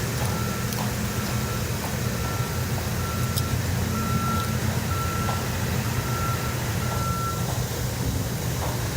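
A vehicle's reversing alarm beeping a single steady tone, a little over once a second, over the low rumble of an idling truck engine; the beeping stops near the end while the engine keeps running.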